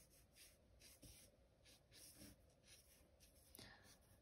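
Faint strokes of a marker tip on sketchbook paper, a soft scratchy swish repeated about three times a second as petals are coloured in.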